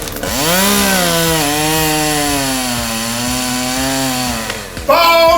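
Exaggerated comic snoring played back from a recording: one long snore, about four and a half seconds, that glides up in pitch at the start, wavers and falls away near the end.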